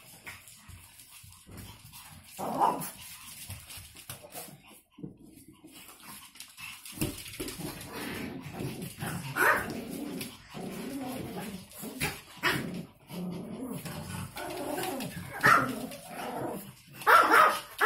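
Small spitz dogs barking in short bursts every few seconds.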